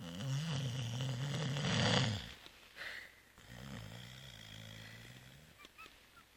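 Labrador retriever snoring in deep sleep: one long, loud snore over the first two seconds, a short snort about three seconds in, then a softer, drawn-out snore that fades.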